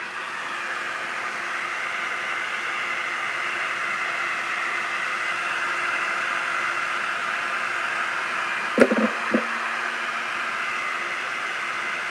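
Handheld hair dryer coming on at the start and blowing steadily, a constant airy rush, as it is aimed at the hair. Two short, louder sounds cut through it a little before nine seconds in.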